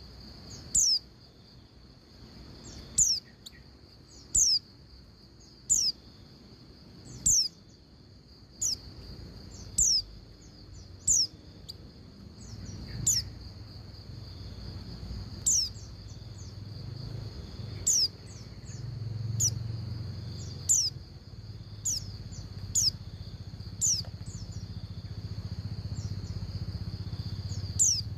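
Female white-eye (pleci) calling: short, high-pitched downward-slurred chips, repeated about every one to two seconds, the call used to draw a male into song. Under the calls runs a steady high whine and a low hum that grows louder partway through.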